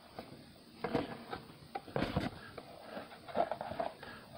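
Cardboard toy box handled and turned over in the hands: soft, scattered taps and rubs of the card against fingers.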